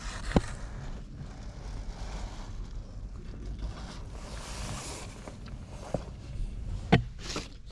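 Wind rumbling on the microphone, with a few sharp clicks or knocks, the loudest about seven seconds in.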